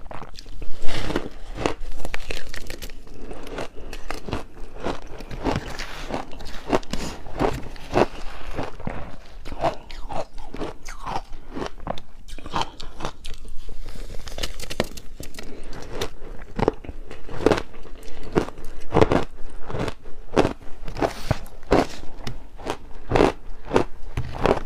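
Ice being bitten and chewed: a steady run of irregular sharp crunches and cracks as the pieces break between the teeth.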